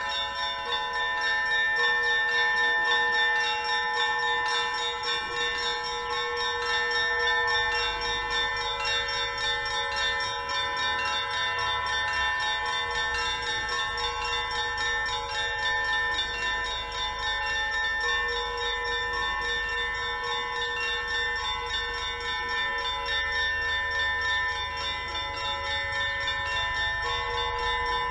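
Russian Orthodox monastery bells ringing together in a dense, unbroken peal. Small high bells are struck in quick succession over longer-sounding lower bells.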